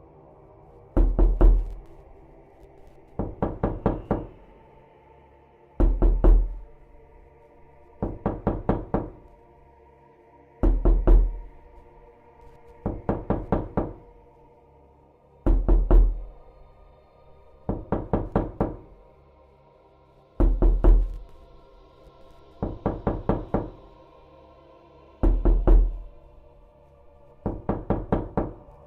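Repeated knocking: clusters of several quick knocks about every two and a half seconds, heavy deep-thudding clusters alternating with lighter ones. Under them runs a dark, steady droning music bed.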